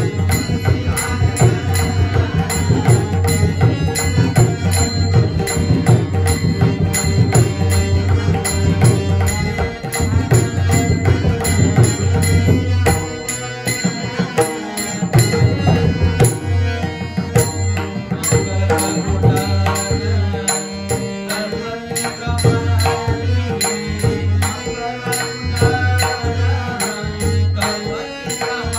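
Marathi bhajan music: a pakhawaj drum plays a dense, steady rhythm under devotional singing, over a steady held note. The deep strokes of the drum drop away for a few seconds about halfway through, then return.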